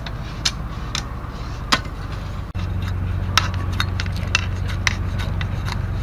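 Knife blade cutting and scraping bamboo strips: short sharp scrapes and clicks, a few spaced strokes at first, then quicker strokes, about three a second, as the blade shaves along a green bamboo strip. A steady low rumble lies under it and grows louder about halfway through.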